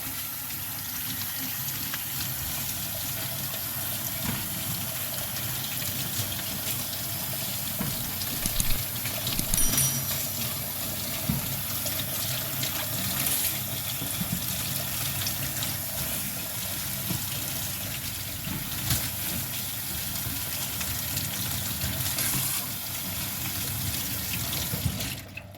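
Water running steadily, as from a tap into a sink, with a few knocks, cutting off abruptly just before the end.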